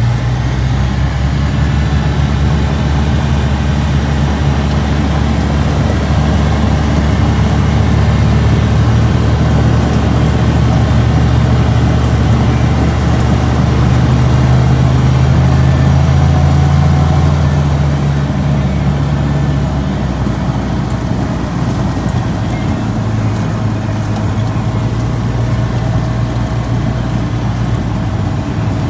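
Steady low drone of a road vehicle driving, with its deepest rumble easing about two-thirds of the way through.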